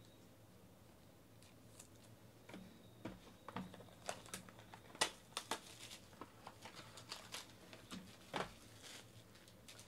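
Clear plastic wrapping on a box of trading cards being picked at and torn off by hand: a run of sharp crackles and crinkles that starts a couple of seconds in and goes on in irregular bursts.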